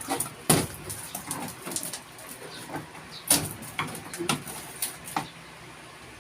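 Irregular knocks and clatter of old, rotten wooden framing being pried and knocked loose during demolition, the loudest about half a second in and again past the three-second mark.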